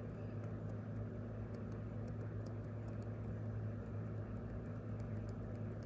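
Steady low mechanical hum with a faint scatter of light ticks.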